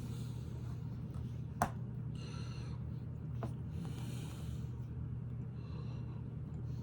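Lego bricks clicking as pieces are pressed together: one sharp click about a second and a half in and a softer one about halfway through. Under them are a steady low hum and several short nasal breaths.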